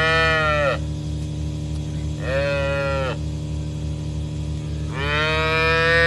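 Young dairy calves mooing: three fairly high-pitched bawls, the middle one short and the last one longest, calling while they wait for their bottle of milk. A steady low mechanical hum with a regular pulse runs underneath.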